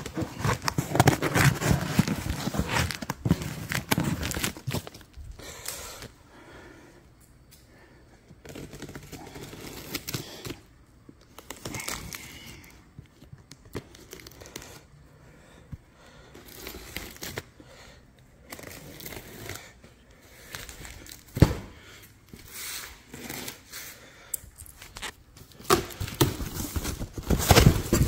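A large cardboard shipping box being opened by hand: packing tape and cardboard ripping and rustling in irregular bursts, busiest in the first few seconds and again near the end, with one sharp snap a little after twenty seconds in.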